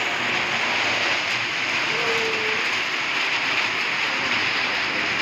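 Heavy rain pouring down: a steady, even hiss of a downpour.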